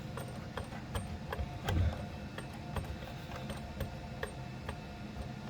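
Small irregular clicks and ticks of a 4.3-10 coaxial connector being threaded and screwed on by hand onto a radio unit port, with a louder knock just under two seconds in.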